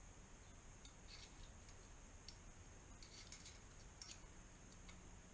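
Near silence: room tone with a steady faint hiss and scattered faint, light clicks.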